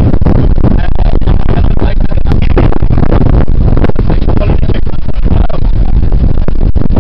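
Wind buffeting the camera's microphone: a loud, continuous low rumble that drowns out everything else.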